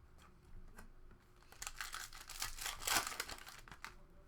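Trading-card pack wrapper and cards being handled: a few light clicks, then a couple of seconds of crinkling and rustling.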